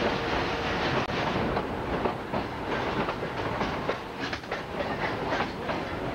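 Narrow gauge train cars rolling along the track, a steady rumble with wheels clicking over rail joints and switches, the clicks more frequent in the second half.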